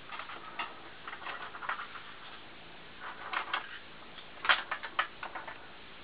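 Irregular runs of light clicks and taps as small screwdrivers and tweezers are picked up and gathered, with the sharpest cluster about four and a half seconds in.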